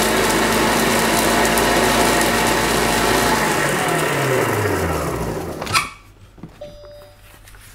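Monsieur Cuisine Connect food processor running its blade at speed 8, chopping parsley leaves and rosemary needles in the mixing bowl. About three seconds in the motor winds down with a falling whine, and a click follows near the end.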